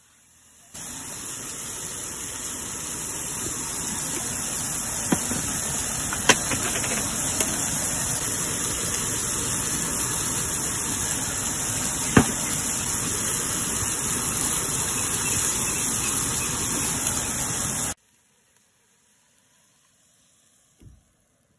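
Prime rib steak searing on a hot grill pan over a portable gas stove: steady loud sizzling, with a few sharp clicks, that stops abruptly a few seconds before the end.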